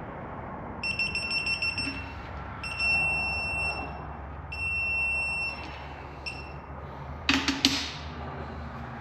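Digital torque wrench beeping three times as the engine bolts reach their set torque: the first beep broken into rapid pulses, then two steady beeps. Near the end there is a short clatter of metal clanks from the tools.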